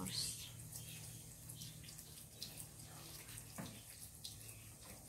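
Pen scratching across notebook paper in short strokes of handwriting, faint, over a steady low hum.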